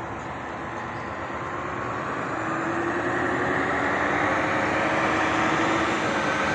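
Motor vehicle running, growing steadily louder, with faint engine tones slowly rising in pitch.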